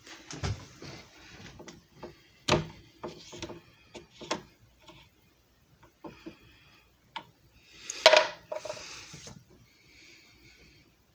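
Irregular clicks, knocks and scraping of objects being handled, with a louder clatter about eight seconds in.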